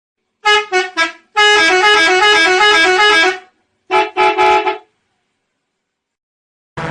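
Indonesian 'telolet' musical bus horn sounding: three short toots, then a long warbling run that alternates between two close notes, then two more toots.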